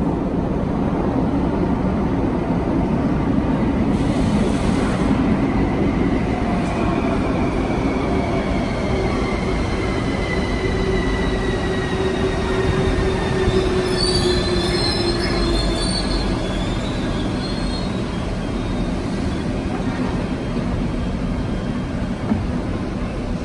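Electric metro train running along the track with a steady rumble and a motor whine that falls slowly in pitch. A brief cluster of high squeals comes about fourteen seconds in.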